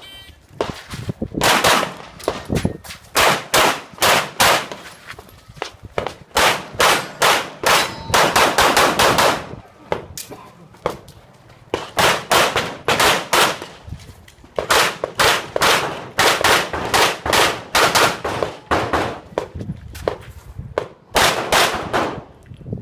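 Handgun fired in rapid strings of shots during a practical-shooting stage run, with pauses of one to three seconds between strings, and metallic clangs mixed in.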